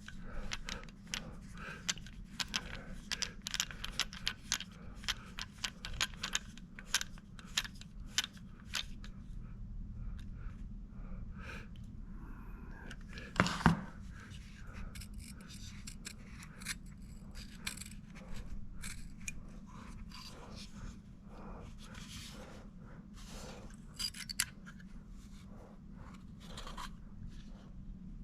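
Irregular small clicks and scrapes of a screwdriver and metal parts as a small screw is put back into a bare hard drive, with one louder knock about halfway through.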